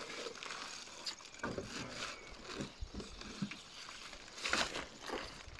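Unpacking sounds: plastic wrapping rustling and scattered knocks of cardboard and packaging being handled, with a louder rustle about four and a half seconds in.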